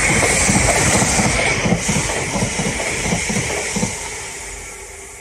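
Greater Anglia electric multiple unit passing through the station, its wheels clattering in a steady rhythm of paired beats over the rail joints under a rushing hiss. It fades away over the last second or so as the rear of the train goes by.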